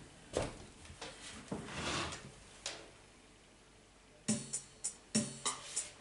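Movement noises, rustling and a few knocks, as a player settles at an electronic keyboard; then, about four seconds in, the keyboard starts playing a run of struck notes.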